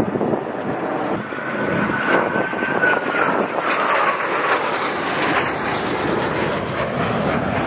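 Blue Angels F/A-18 Super Hornet jets flying past overhead: the steady rushing noise of their twin turbofan engines, with a high whine that dips slightly in pitch about three seconds in.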